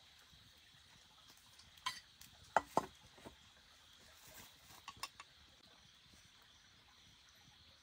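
A handful of light clicks and knocks, loudest a little after two seconds in and stopping after about five seconds, over a faint steady hiss.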